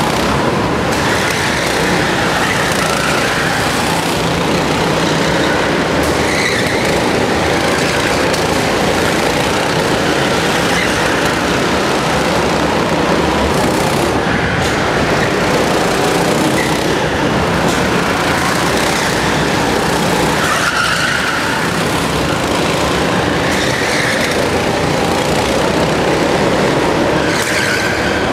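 Go-kart engines running on a karting track, their pitch rising and falling every few seconds as the karts speed up and slow down through the corners.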